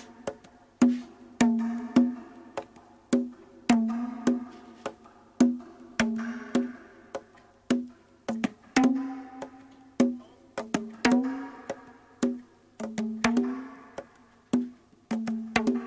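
Experimental jazz-rock music: sparse percussion hits at an irregular pace, a bit over one a second. Each hit is a sharp knock followed by a short pitched ring that fades away.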